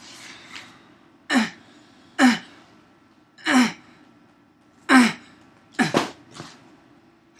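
A man's short, loud wordless outbursts, six in a row, each dropping in pitch, spaced about a second apart.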